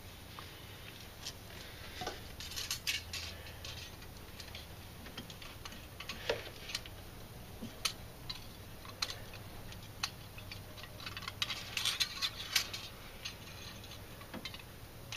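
Light metallic clicks and taps of steel feeler gauge blades being fanned out and tried in the valve lash gap between a rocker arm and the cam lobe. The clicks are irregular and come in small clusters, as the lash on the solid lifters is checked blade by blade.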